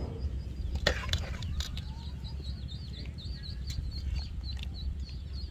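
A small bird chirping in a fast run of short high notes, over a steady low hum of rural background. A sharp clink about a second in is a metal ladle knocking against the serving bowl as sauce is spooned over fried fish.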